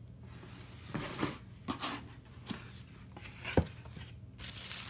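Cardboard shoebox being handled and its lid opened: a series of short scrapes and knocks, the loudest a sharp knock about three and a half seconds in, then tissue paper rustling near the end.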